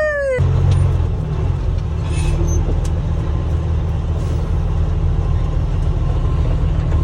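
A car driving, heard from inside the cabin as a steady low rumble of road and engine noise. A high whining call cuts off about half a second in.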